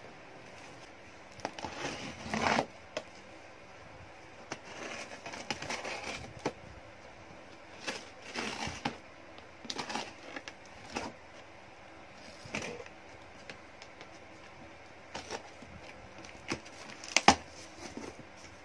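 A cardboard shipping box sealed with packing tape being handled and opened by hand: irregular scrapes, crackles and rustles of tape and cardboard, with one sharp snap near the end, the loudest sound.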